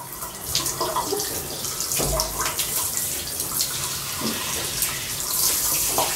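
Water spraying from a handheld shower head and splashing over a baby being rinsed, a steady hiss with small irregular splashes.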